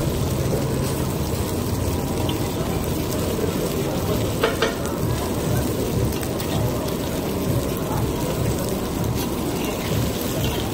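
Aloo tikki potato patties sizzling in shallow oil on a large flat griddle, a steady frying sizzle. A metal spatula scrapes and clinks on the griddle now and then, most sharply about four and a half seconds in.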